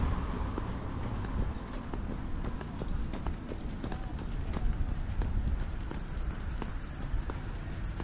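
Steady high-pitched insect chorus, a fast even trill, with a low rumble underneath.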